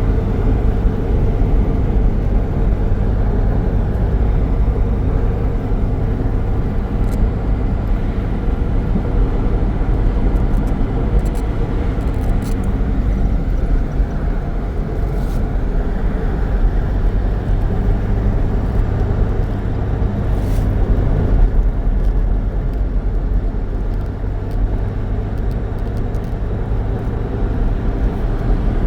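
A car running steadily on the move: a continuous low engine and road rumble, with a few short knocks or rattles scattered through.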